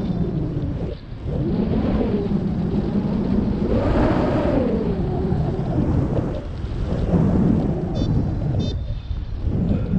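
Wind buffeting the microphone: a loud, steady, low rumble with a brief dip about a second in.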